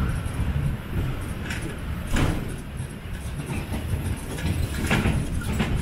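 Tourist road train rolling slowly along a street: a steady low rumble of its engine and wagons, with a few knocks and rattles from the carriage, one about two seconds in and a pair near the end.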